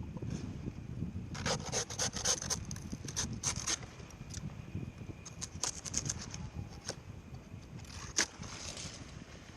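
Dry palm wood and fronds scraping and rubbing in short irregular clusters of scratchy strokes.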